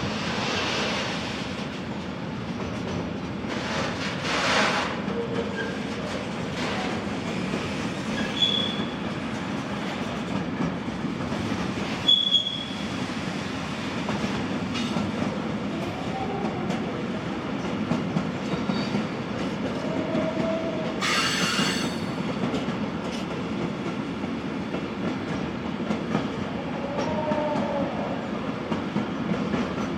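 Train rolling through railway switches: a steady rumble with wheels clacking over the rail joints, broken by several short, high wheel squeals and a brief screech as the flanges grind through the points.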